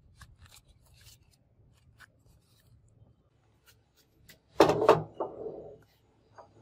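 An 18 kg steel block set down on a surface grinder's steel magnetic chuck: two quick metallic clunks about four and a half seconds in, with a short ringing tail. Before that, faint rubbing and clicking of gloved hands handling the block.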